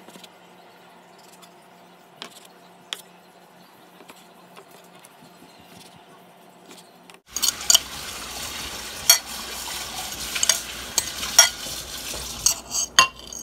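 A knife cutting a slice of bread on a plastic cutting board, faint, with a few sharp taps of the blade. About seven seconds in it changes to louder stirring of chopped vegetables in a glass bowl, with frequent clinks of a fork against the glass.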